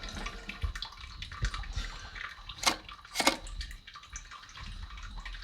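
Water dripping and splashing inside a toilet tank as plastic fill-valve and flapper parts are handled, with two sharp knocks about half a second apart in the middle.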